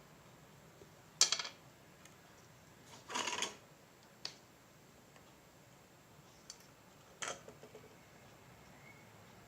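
A few short clicks and scrapes from small tools and a piece of wire being handled on a circuit board, the longest about three seconds in.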